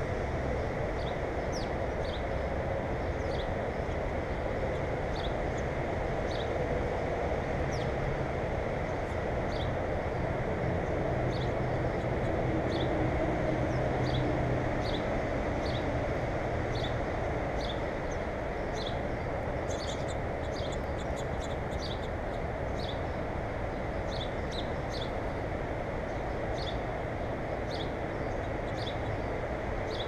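A small bird calling, short high chirps repeated about once a second, over a steady low rumbling background noise.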